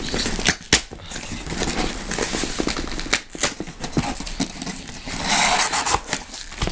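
Packaging being opened and handled by hand: scattered clicks, scrapes and rustles, with a longer, louder rustle about five seconds in.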